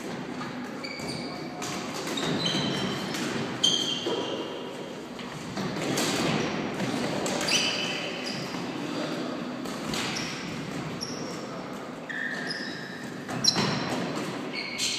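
Floorball play in an echoing sports hall: repeated short, high squeaks of sneakers on the gym floor, with sharp clacks of sticks hitting the plastic ball and occasional shouts from players.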